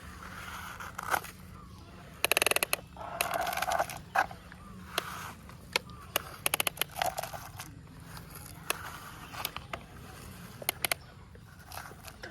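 Toy excavator scooping soil: scraping and rustling of dirt, with scattered clicks and a short rapid rattle about two seconds in.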